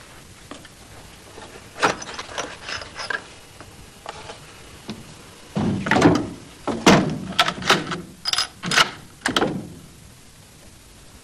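Metallic clicks and clacks of a bolt-action rifle being handled and loaded: a few light clicks about two seconds in, then a quick run of louder, sharper clacks as the bolt and action are worked.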